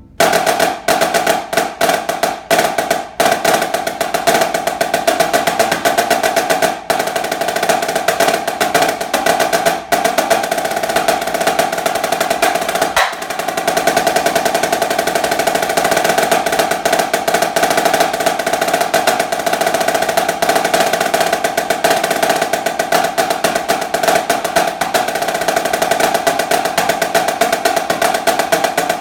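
Solo snare drum played fast, with a few short breaks between rapid passages in the first part. From about halfway through it settles into one long, continuous roll.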